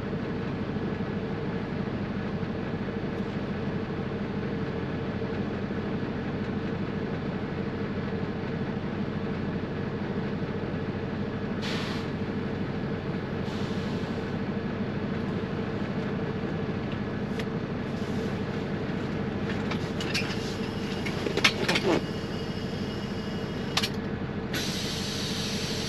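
Semi-truck's diesel engine idling, heard inside the cab as a steady hum. A few clicks and knocks come near the end as the dashboard controls are handled.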